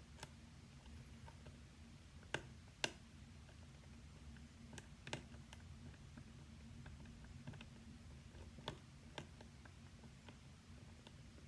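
Small, sharp metallic clicks of a lock pick and tension wrench working the pins of a pin-tumbler lock, scattered irregularly, with a few louder clicks about two to three seconds in and again near nine seconds. A low steady hum runs underneath.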